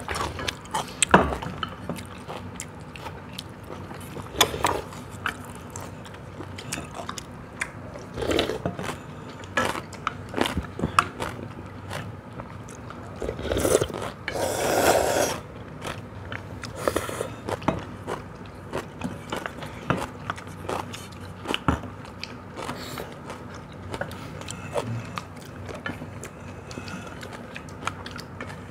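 People eating cold bean noodle soup: chopsticks clicking and scraping against stainless steel bowls, with chewing, and a long noodle slurp about halfway through.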